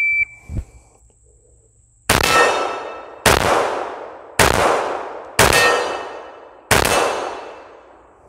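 A shot timer beeps once, then a Glock 21 .45 ACP pistol fires five shots about a second apart. Each shot is followed by a long ringing decay as the steel plate target rings out.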